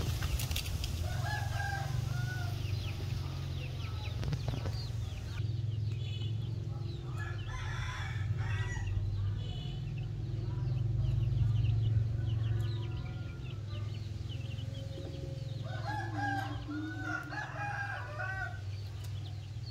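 A hen and her young chickens calling and clucking, with groups of calls about a second in, around eight seconds in and again around sixteen to eighteen seconds in, and short high chirps in between, over a steady low hum.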